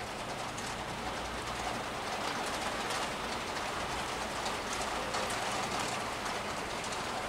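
Steady rain falling, with a low rumble of city traffic underneath.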